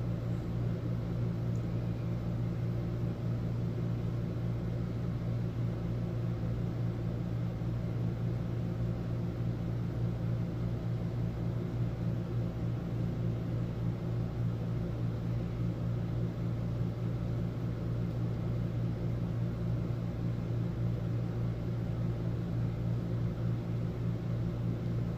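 Steady low mechanical hum with a constant pitch, unchanging and without any knocks or clicks.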